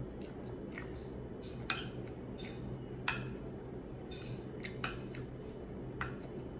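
Metal spoon and fork clinking and scraping on a plate, a handful of sharp clinks a second or two apart, with soft chewing over a steady low hum.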